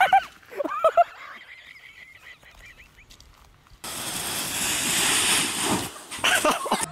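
A few short high cries, then an abrupt steady rushing noise lasting about two seconds as a snow tube slides down a snowy slope, followed by more short cries near the end.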